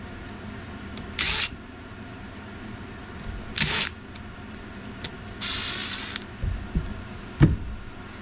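Cordless power screwdriver whirring in short bursts, about a third of a second each, backing out the screws from the bottom of a dump bed actuator. A longer, hissier burst about two-thirds of the way in is followed by a few light clicks and knocks.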